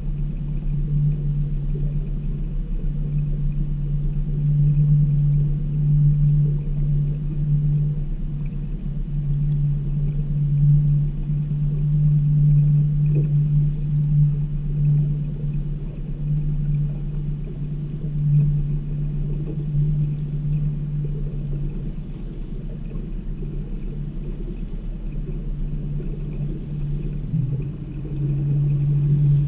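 A boat's motor running steadily at low speed: a constant low hum, heard from on board. Its pitch wavers briefly near the end, then it settles back into a steady hum.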